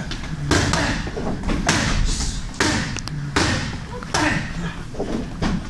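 Boxing gloves striking focus mitts in a rapid string of sharp smacks, about ten punches in under six seconds.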